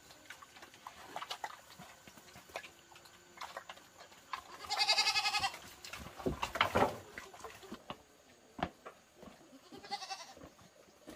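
An animal calling: one loud call about a second long a little under halfway through and a fainter one near the end, with scattered sharp knocks in between.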